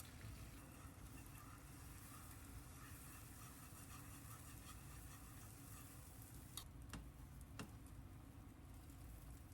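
Near silence: room tone, with a few faint clicks about two-thirds of the way through.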